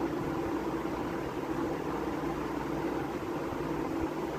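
A steady mechanical hum with a constant low droning tone under a hiss, typical of a running machine such as a fan.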